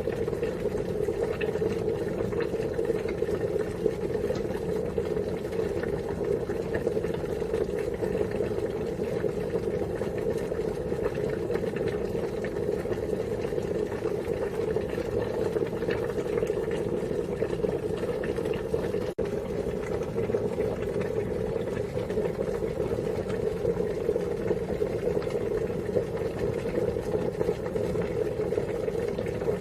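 Water at a rolling boil, a steady bubbling and crackling that is fullest in the low-middle range, with a momentary drop in level about two-thirds of the way through.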